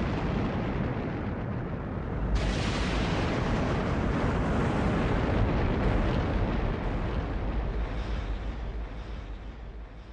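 Closing noise effect of an electronic song: a dense, low-heavy wash of noise that turns suddenly brighter and hissier about two seconds in, then slowly fades out.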